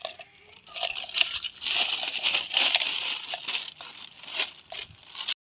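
Crinkling and rustling with scattered clicks and knocks as things are rummaged through and handled, busiest in the middle.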